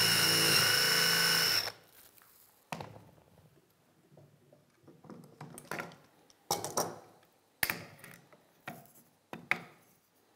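Cordless drill boring a Forstner bit into two boards clamped together, running steadily with a high whine, then stopping about a second and a half in. After it, a series of light knocks and rustles as a hand brushes wood shavings off the clamped boards.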